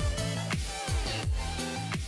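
Electronic intro music with a steady beat of deep kick drums that drop in pitch, about two and a half beats a second, under sustained synth notes.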